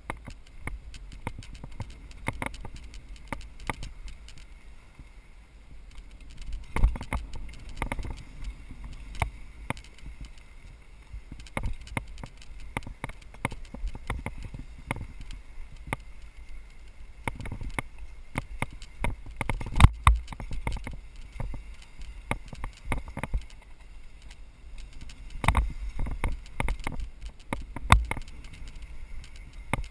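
Mountain bike rolling down a rough dirt trail, rattling and knocking over bumps in quick irregular clicks, with a steady low rumble underneath. A few harder jolts stand out, the loudest about two-thirds of the way through.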